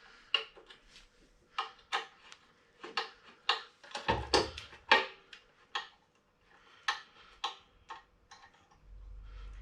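Irregular sharp clicks and taps of a metal hand tool: a 4 mm Allen key being handled and set into the bolts of the compressor's regulator, with a couple of duller bumps.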